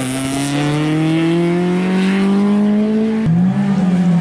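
Race car engine accelerating, its note rising steadily; about three seconds in it breaks off abruptly and carries on at a lower pitch that slowly falls.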